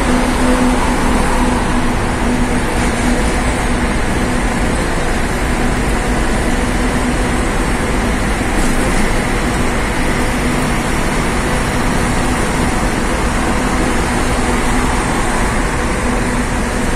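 Truck engine running steadily with road and tyre noise, heard from inside the cab while driving through a road tunnel.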